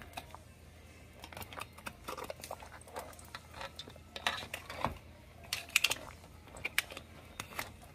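Metal tongs clicking and scraping against Dungeness crab shells and the steel pot as the boiled crabs are turned over, in scattered light clicks with a busier cluster about four to six seconds in.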